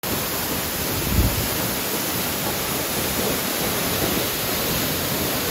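Steady rush of a tall waterfall heard close by, an even roar of falling water with an uneven low rumble underneath. It starts and stops abruptly.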